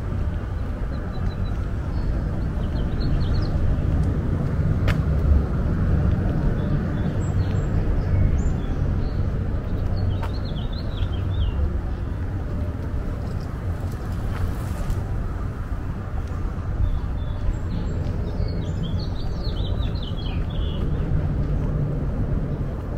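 Steady low rumble of road traffic, with small birds chirping in short bursts three times. There is one sharp click about five seconds in.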